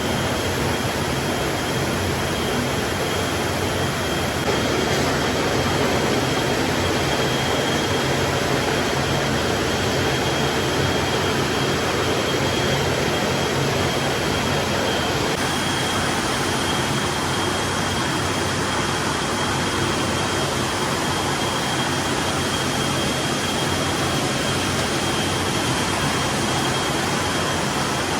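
Steady, loud machine noise with a constant high-pitched whine running through it.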